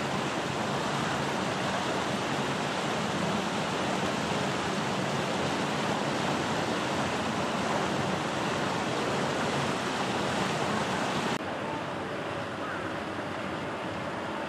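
Steady rushing noise with no clear tones, dropping abruptly to a quieter hiss about eleven seconds in.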